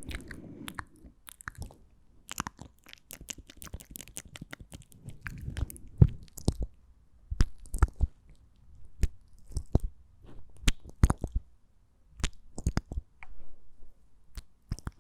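Close-miked ASMR mouth sounds: irregular wet clicks and smacks of the lips and tongue, sometimes several in quick succession, with a few louder pops around the middle.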